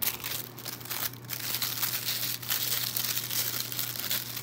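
Packing material crinkling and rustling as hands rummage in a cardboard shipping box.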